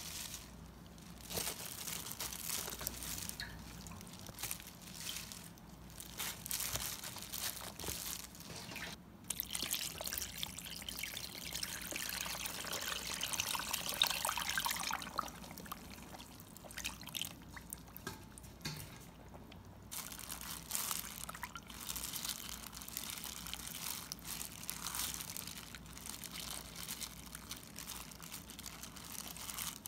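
Red chili-pepper water poured over napa cabbage in a plastic tub, a steady pour in the middle lasting about five seconds. Before and after it come shorter splashes and sloshing as the liquid is worked around the cabbage by a gloved hand.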